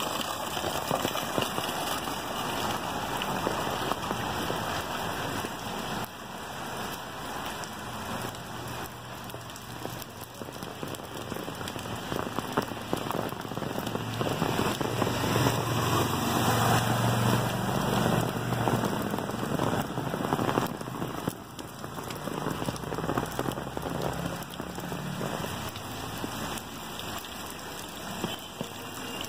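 Heavy rain falling on a flooded street and its standing water: a dense, steady hiss of countless drops that grows louder for several seconds in the middle.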